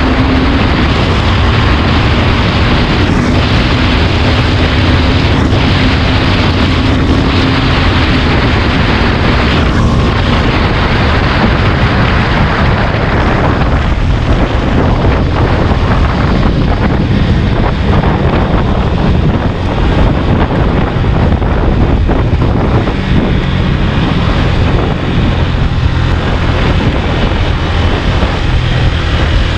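Heavy wind rushing over the microphone at road speed over the KTM Duke 390's single-cylinder engine, as the bike slows from about 110 to 50 km/h.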